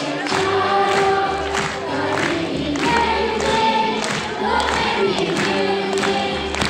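Music with held, choir-like sung vocals over a steady beat.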